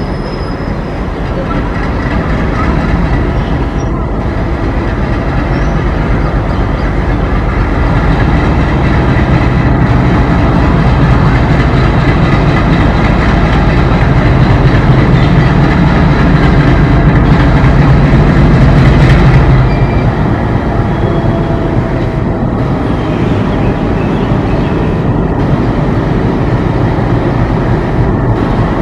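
ALCo diesel locomotive running on the move, its engine a loud low rumble that builds steadily, then drops off abruptly about twenty seconds in and carries on at a lower level.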